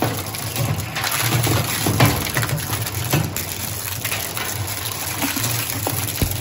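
Twin-shaft plastic shredder running, with a steady low motor hum under continuous crunching and cracking as its counter-rotating blades chew hard plastic scrap. The sharpest crack comes about two seconds in.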